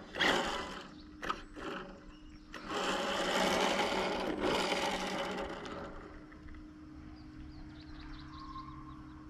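Radio-controlled drag car's electric motor and drivetrain whirring in a few short throttle blips, then a longer run of about three seconds with the car staying nearly in place, which then fades to a faint hum.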